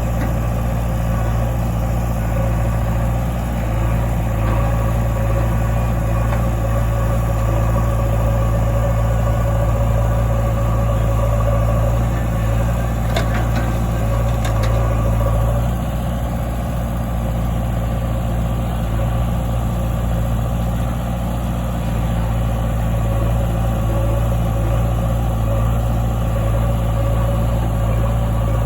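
Heavy diesel engine running at a steady idle, with a deep, unchanging hum.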